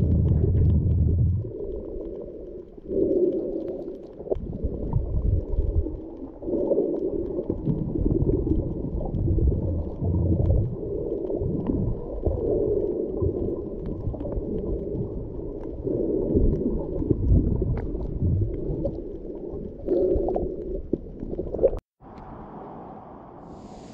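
Muffled sea water surging and sloshing around a camera in the water, swelling and fading every second or two, with a few faint clicks. It cuts off abruptly about two seconds before the end and gives way to a quieter steady hiss.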